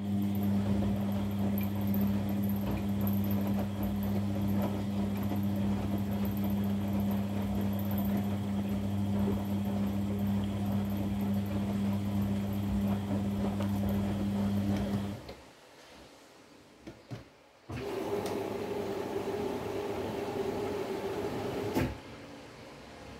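Front-loading washing machine's drum motor humming steadily as it tumbles foamy wash for about fifteen seconds, then stopping. After a short pause a second, higher-pitched hum runs for about four seconds and ends in a click.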